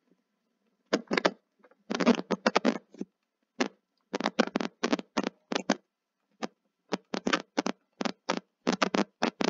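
Stylus tapping and scratching on a tablet screen while a formula is handwritten: short, irregular clusters of sharp clicks with brief silent gaps between them.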